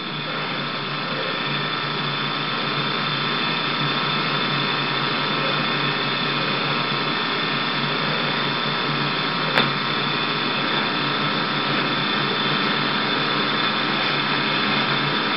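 Steady hum and hiss of a VHS recording with no programme sound, several steady tones running through it, and a single click about ten seconds in.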